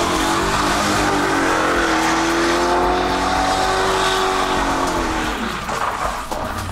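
Car engine held at high revs with tyres squealing and skidding, as in doing donuts. The engine pitch climbs in the first second, holds high, then drops away near the end.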